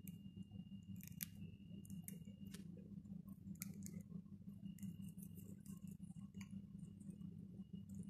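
Parakeets crunching dry food (chana and puffed rice) in their beaks: faint, irregular crisp clicks and crunches.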